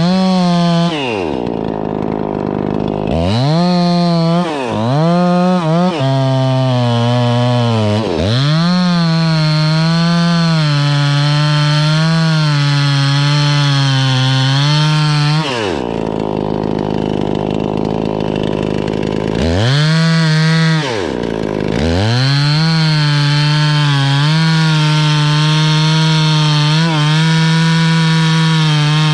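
Two-stroke chainsaw cutting poplar: long full-throttle runs whose pitch wavers as the chain bites, twice dropping back to idle between cuts, with short blips of the throttle in between.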